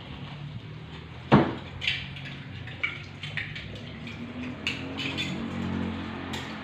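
Metal cookware clanking as a utensil works a large cooking pot: one sharp knock about a second in, then a few lighter clinks, over a low steady hum.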